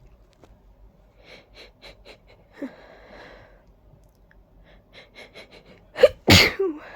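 Allergy sneezing fit from ragweed hay fever. A run of short, quick, hitching breaths builds up, then a loud sneeze bursts out near the end.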